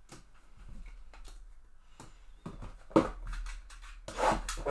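Trading cards and a cardboard hobby box being handled on a tabletop: light clicks and taps, a sharp knock about three seconds in, then a burst of rustling as the box is grabbed near the end.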